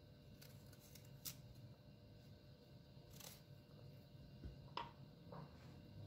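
Faint sounds of a small kitchen knife cutting and scraping the core out of a quince half on a wooden cutting board: a handful of soft, separate cuts and clicks.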